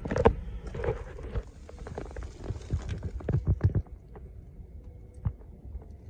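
Wind rumbling on the microphone with irregular knocks and rustles of handling from a handheld camera, the knocks clustered right at the start and between about two and a half and four seconds in.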